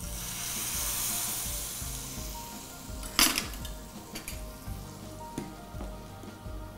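Hot ghee with fried cashews and raisins poured into a pot of coconut-milk payasam, hissing and sizzling at once and fading away over about two seconds. About three seconds in comes one sharp metal clink, then a ladle stirring the payasam.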